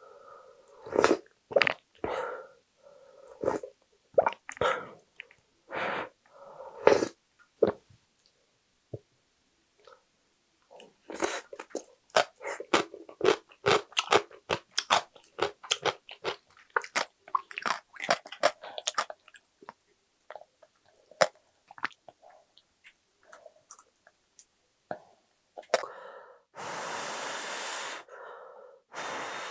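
Close-miked eating sounds of a person having brothy ramen: sips of broth from a wooden ladle, then a long stretch of chewing with many wet mouth clicks and smacks. Near the end comes a long breathy rush of air as the noodles are lifted to the mouth.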